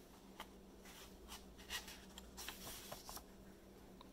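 Faint paper rustling as a picture-book page is turned by hand: a string of soft brushes and light clicks in the middle, over a faint steady hum.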